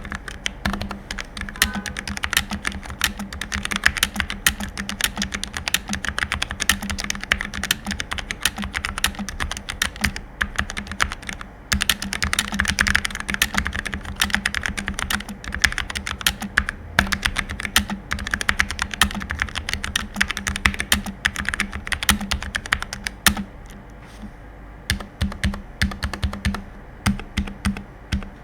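Fast typing on a Redragon Anivia K614 low-profile mechanical keyboard with Outemu Red switches: a dense, continuous stream of key clacks that thins to separate, spaced keystrokes in the last few seconds.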